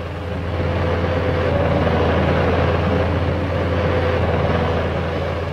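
Engine of a tracked armoured vehicle fitted with a dozer blade, running hard as it pushes through earth: a steady low hum under a broad noisy spread, building over the first second and easing slightly near the end.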